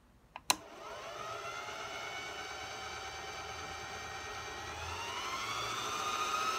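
Singer Heavy Duty sewing machine motor, run through its foot pedal modified into a manual speed controller. A click about half a second in, then the motor spins up to a steady whine that climbs in pitch about five seconds in as the speed slider is pushed up.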